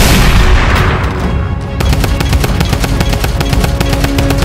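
A dubbed explosion sound effect at the start, fading out over about a second and a half, followed by rapid machine-gun-style firing effects over background music.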